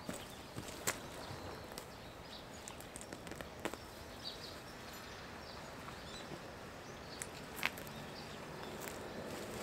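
Quiet outdoor ambience with gloved hands working loose soil in a planting hole: soft scraping and rustling, with a few sharp clicks about one, four and eight seconds in.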